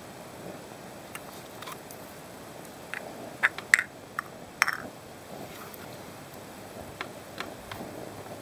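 Several light metallic clicks and knocks, bunched together near the middle, as small objects are handled and set down on a metal tray, some with a short ring. A faint steady hiss lies underneath.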